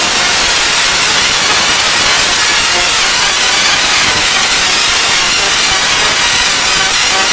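A wheezing sound clip, heavily distorted by stacked audio effects into a loud, harsh, steady hiss with faint wavering tones inside it.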